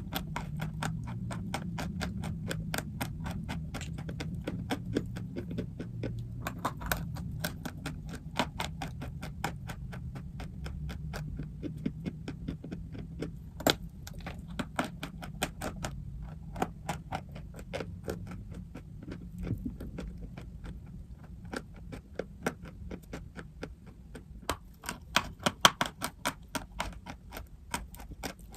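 Dry chalk and clay crunching: a dense run of sharp, irregular crackles and snaps, a few louder ones standing out, over a low steady hum.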